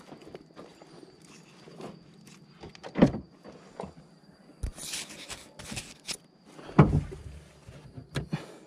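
Gear being handled in the dark: scattered clicks and rustling, with two louder thumps about three and seven seconds in.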